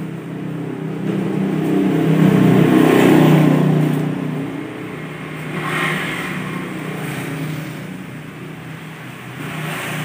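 A motor vehicle engine running nearby, swelling louder about two seconds in and easing off after about four seconds.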